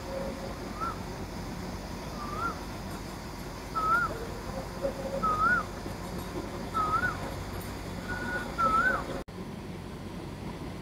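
A whistled call, one short rising-and-falling note repeated about every second and a half, each a little louder and higher than the last. It sits over the steady rumble of the moving passenger train and cuts off suddenly about nine seconds in.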